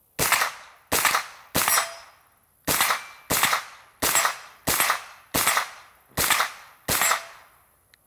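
A Wilson Combat AR9-G 9mm carbine firing ten semi-automatic shots at a steady pace: three, a short pause, then seven more, each with a short echo.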